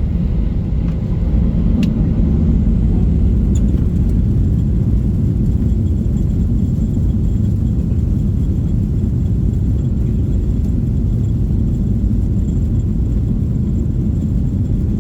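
Steady low rumble of airliner cabin noise: the engines and rushing air heard from inside the plane, with a faint steady high whine above it.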